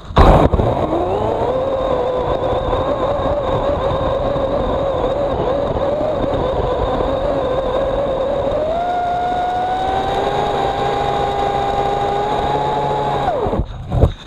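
EGO CS1800 battery-electric chainsaw cutting through a large log. It starts with a loud burst and its motor whine climbs up to speed, then holds a steady pitch in the cut. About nine seconds in the pitch rises, and about a second before the end it winds down and stops, followed by a sharp knock.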